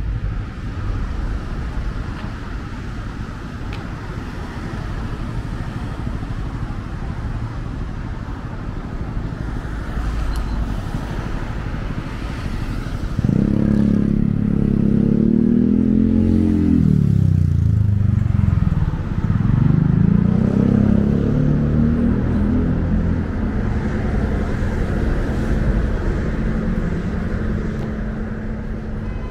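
Road traffic on a wide city street: a steady rumble of passing vehicles. About halfway through, one vehicle's engine comes through loudest for several seconds as it accelerates past, its pitch falling and rising twice before it fades back into the traffic.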